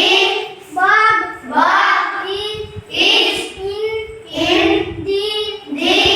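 A child's voice chanting phonic letter sounds in a sing-song rhythm, one drawn-out syllable after another.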